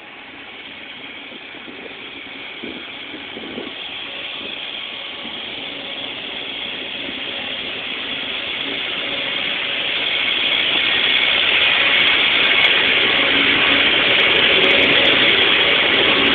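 Self-propelled lettuce harvesting machine running, a steady mechanical clatter and engine noise that grows louder for about twelve seconds as it comes closer, then holds level as it passes close by.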